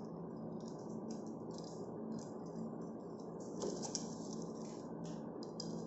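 Plastic drinking straws rattling and clicking against each other and the tabletop in short, irregular bursts as they are gathered and handled, over a steady low hum.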